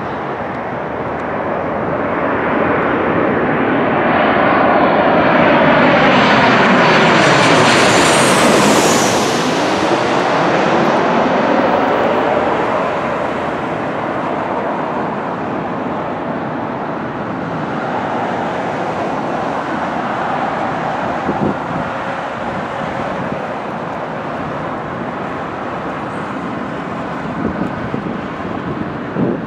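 Boeing 737 jet airliner on final approach passing low overhead, its engines growing louder to a peak with a sweeping, phasing whoosh, then settling into a quieter, steady jet noise as it lands and rolls down the runway.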